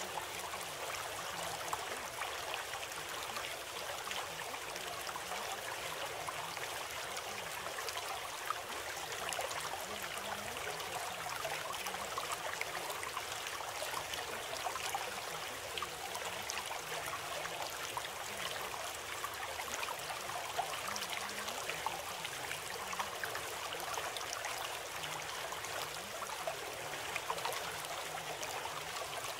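Running water, like a stream, making an even, steady rushing sound with small scattered splashes.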